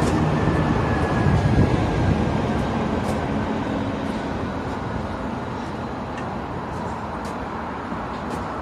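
A vehicle passing close by, loudest about a second and a half in and then slowly fading, with a faint whine that slides slightly down in pitch.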